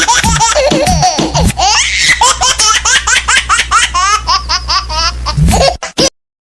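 High-pitched laughter, rapid and repeated, that quickens into a faster, higher run of giggles about one and a half seconds in, over a steady low music drone. It cuts off suddenly near the end.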